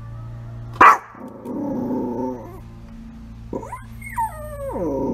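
A Yorkshire terrier gives one sharp, loud yap, then a low growl. Near the end come high whines that slide down in pitch into another growl.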